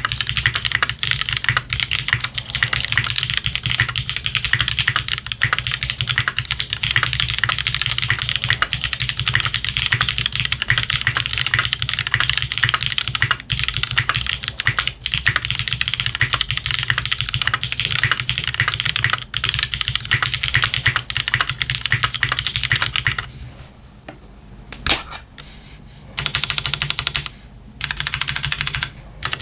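Fast, continuous typing on a Hex 50FE mechanical keyboard with lubed, filmed pre-retooled Cherry MX Black linear switches in a plateless O-ring mount, under PBT DCS keycaps. Near the end the typing breaks off, with a single sharp keystroke, then returns in two short bursts.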